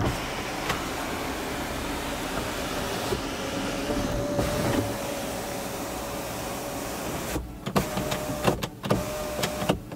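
Electric motor of a 2017 Hyundai Sonata's panoramic moonroof sunshade running steadily with a faint whine as the power shade slides closed. It stops about seven seconds in, followed by a few light clicks.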